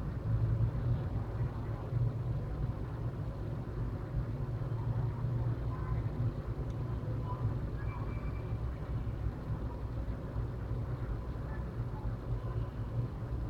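Steady low background rumble with no clear events.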